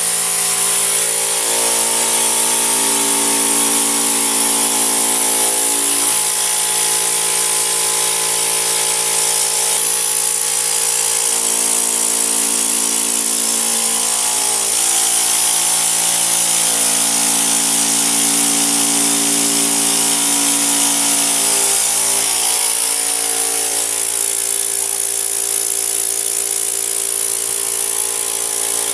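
Vacuum motor running steadily with a high whine, sucking through an upholstery nozzle drawn over fabric sofa cushions. Its hum shifts pitch every few seconds as the nozzle moves.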